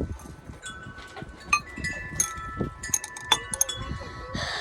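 Chimes ringing: several clear metal tones are struck one after another and each rings on, overlapping, with some low rumbling underneath.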